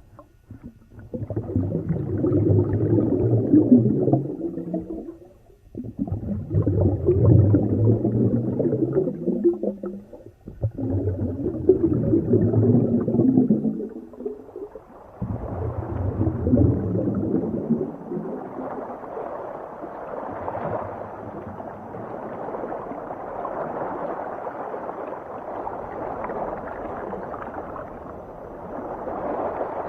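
Ocean water heard underwater: four surging, gurgling swells a few seconds apart, then a steadier rushing wash from about 18 seconds in.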